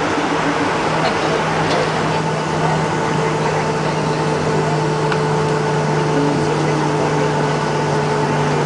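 Cabin noise inside a Boeing 757 rolling out on the runway after touchdown: a steady rush of engine and airflow with a constant low hum.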